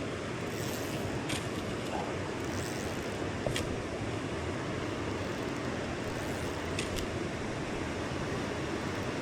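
Steady rush of river water flowing past, with a few faint clicks.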